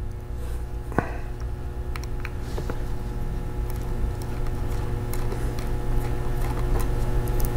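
Light clicks and scrapes of a #0 magnetic-tip Phillips screwdriver turning out the small screws that hold a 2.5-inch laptop hard drive in its drive caddy, with a sharper click about a second in. A steady low hum runs underneath.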